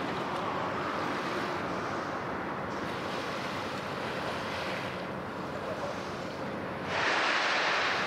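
Steady wind noise on the microphone, with a louder rush lasting about a second near the end.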